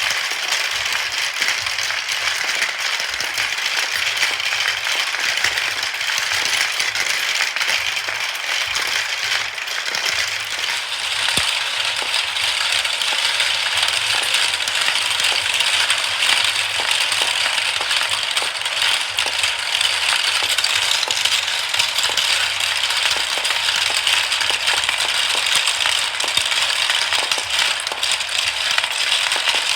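Many marbles rolling and clattering down a marble run track: a dense, continuous rattle of small clicks and knocks.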